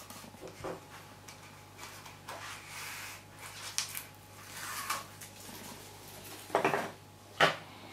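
Double-sided tape being applied down the sides of card pieces: crinkly rustling of paper and tape, then two sharp taps near the end.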